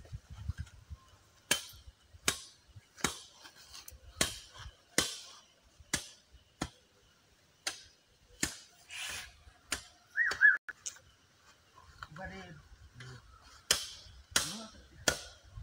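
Machete chopping sticks of wood: sharp, separate strikes roughly one a second, with a longer pause a little past the middle. A brief high squeak comes about ten seconds in.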